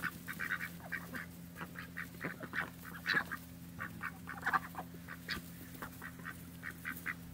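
Domestic ducks and geese calling: a long run of short quacks and honks in quick, uneven succession.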